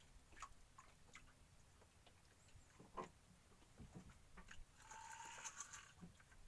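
Near silence with faint, scattered small clicks and knocks, and a faint brief sound about five seconds in.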